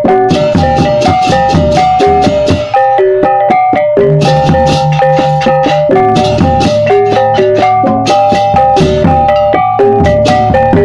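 Background music of tuned mallet percussion playing a fast, busy pattern of struck notes over a low bass.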